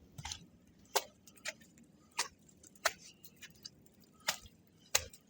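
Footsteps in snow going down outdoor steps: a steady series of short, sharp crunches, about one and a half a second.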